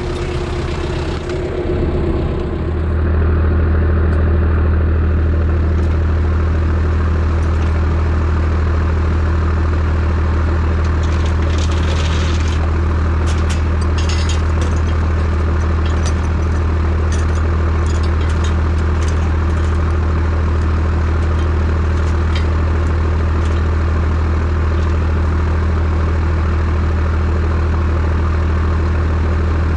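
Kubota M6060 tractor's four-cylinder diesel engine running steadily, getting louder about two to three seconds in and then holding an even note. A few faint clinks come through about midway.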